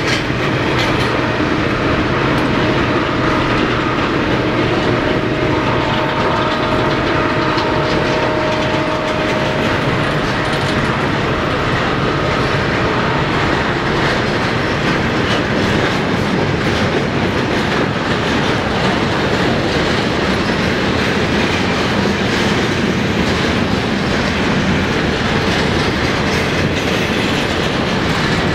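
Norfolk Southern double-stack intermodal well cars rolling past close by: a loud, steady rumble and clatter of steel wheels on rail. A faint thin ringing tone sounds through roughly the first ten seconds.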